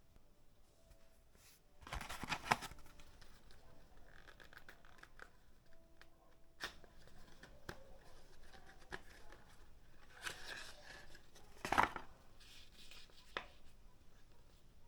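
Packaging being handled and opened: rustling and tearing, with scattered small clicks and two louder bursts, one about two seconds in and a longer one around ten to twelve seconds.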